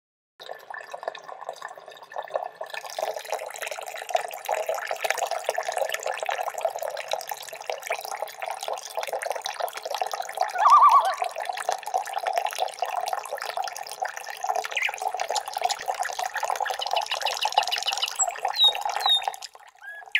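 Steady flowing, babbling water, with a few short bird chirps near the end.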